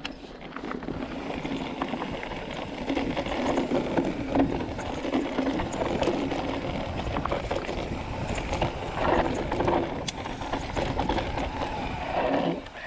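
2018 Rocky Mountain Altitude C50 mountain bike descending a rocky dirt trail: tyres rolling and crunching over loose stones and dust, with scattered clicks and knocks as the bike rattles over bumps.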